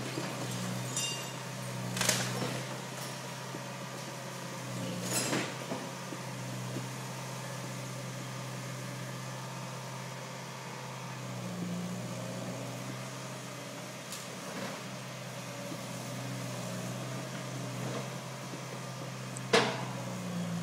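Wheeled hydraulic excavator's diesel engine running steadily while demolishing a house, with a few sharp clanks and crashes of rubble, the loudest near the end.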